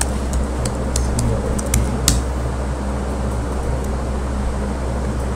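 Computer keyboard keystrokes, a quick scatter of sharp clicks over about the first two seconds as the command is finished and entered. Under and after them runs a steady low electrical hum with fan-like noise.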